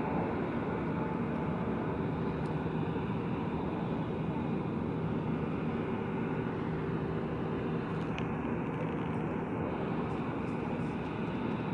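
Airliner jet engines running steadily, a continuous hum with a few held low tones, as a jet waits at the runway end for takeoff.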